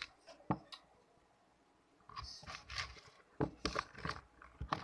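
Runny homemade slime being stirred and squeezed by hand, giving sticky crackling and popping sounds in short bursts. A couple of sharp clicks come about half a second in, and the crackling runs on from about two seconds in.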